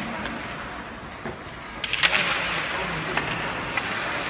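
Ice hockey play on a rink: a few sharp clacks of sticks and puck, the loudest about two seconds in and followed by a brief scraping hiss of skate blades on the ice, over a steady arena murmur.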